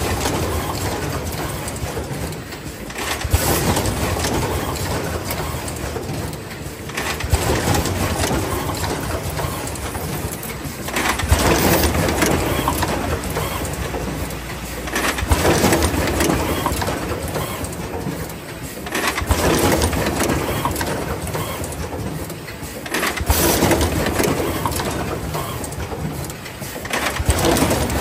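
Fully automatic plug crimping machine running, its noise swelling up about every four seconds as the line cycles.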